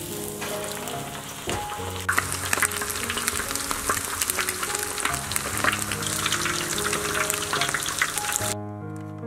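Battered food deep-frying in a wok of hot oil: a dense sizzle and crackle that builds after a couple of seconds and stops suddenly near the end, with background music underneath.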